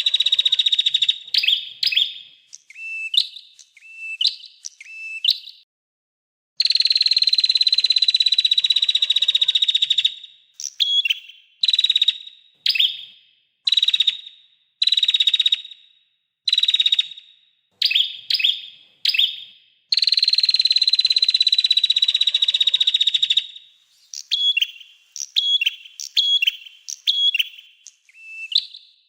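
Recorded small songbird song played as a master track for training cage birds. Long, high trills lasting a few seconds alternate with runs of short, sharp notes that drop in pitch, about one or two a second.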